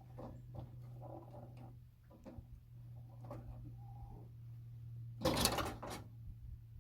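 Scattered knocks and scrapes of hand work, with a louder scraping rasp about five seconds in, over a steady low hum.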